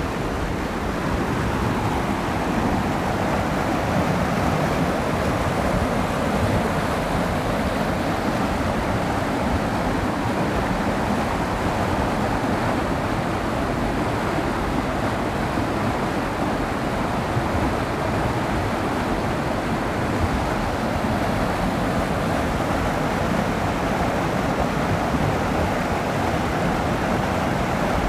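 Whitewater rapids of the Lousios River rushing over rocks: a steady, unbroken rushing noise at an even level.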